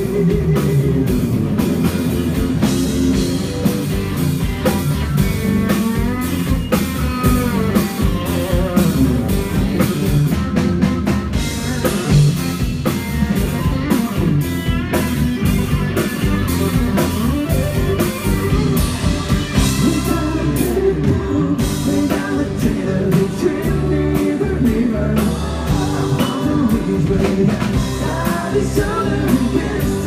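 Live country band playing at full volume: electric guitars, fiddle and drum kit.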